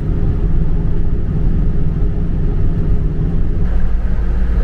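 Car driving, heard from inside the cabin: a steady engine and road rumble. The low rumble gets heavier about three and a half seconds in.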